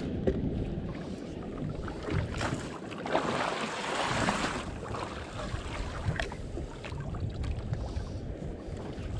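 Wind buffeting the action camera's microphone, with sea water lapping around a drifting boat. A louder rush of hiss swells about three seconds in and lasts over a second.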